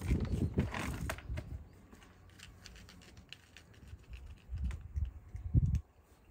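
A cat chewing dry cat kibble: a run of small, quick crunching clicks. Low rumbling bumps on the microphone come at the start and again about five seconds in, the loudest just before the end.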